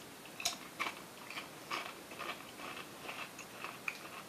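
Someone biting into and chewing a crisp Taco Bell Fire tortilla chip: a run of irregular crisp crunches, the loudest about half a second in.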